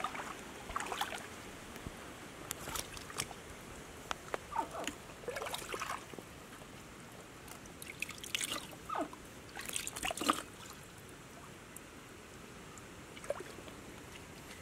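Shallow stream water trickling, with irregular short splashes and wet sloshing as hands work in the mud and water at the bank.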